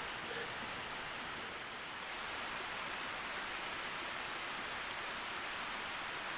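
Steady, even hiss of outdoor background noise with no distinct sounds in it.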